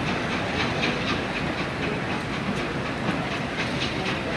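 Steam-hauled passenger train pulling away: a steady rumble of the coaches on the track with a regular beat about two to three times a second and a hiss of steam.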